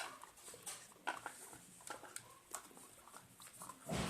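Scattered light clicks and taps of wires and small parts being handled on a drone frame, with a louder knock near the end.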